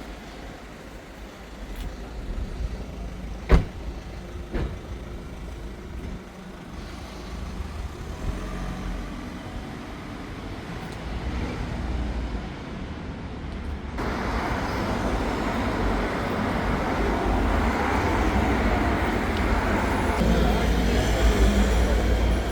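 Street traffic: motor vehicles running and passing with a steady rumble, and one sharp knock about three and a half seconds in. About two-thirds of the way through, the traffic noise abruptly becomes louder and fuller.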